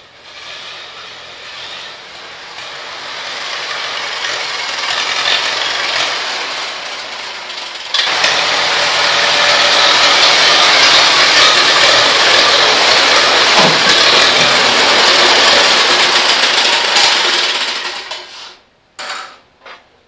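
Allis-Chalmers WD45 tractor's gasoline engine running as the tractor drives up close, growing steadily louder, then stopping a couple of seconds before the end.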